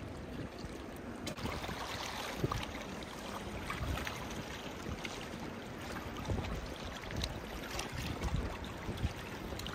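Wind buffeting the microphone while rain falls: a steady rushing noise with scattered small taps.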